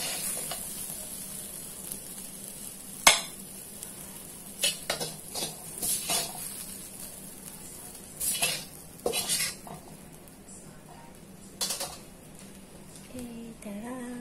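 Metal spatula scraping and clacking against a wok while scrambled egg and tomato is scooped out onto a plate, in scattered strokes with one sharp clack about three seconds in, over a faint sizzle from the hot pan.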